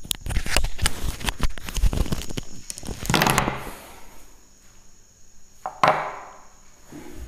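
A quick run of knocks and clicks, then a louder rushing burst about three seconds in and another sharp, fading burst near six seconds.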